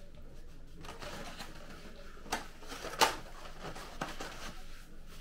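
Styrofoam takeout clamshell containers being handled and shut: foam rubbing and creaking, with sharp snaps as the lids latch, the two loudest a little past the middle.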